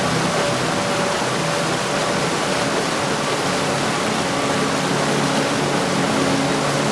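Heavy rain falling as a steady, even hiss, with no thunder.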